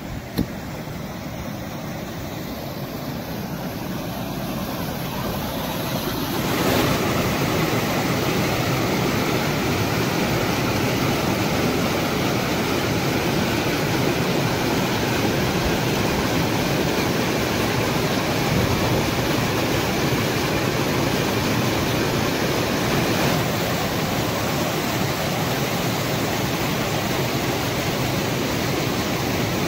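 A rain-swollen, muddy stream rushing and churning over rocky rapids. It grows louder over the first six seconds or so, then holds as a steady rush of white water.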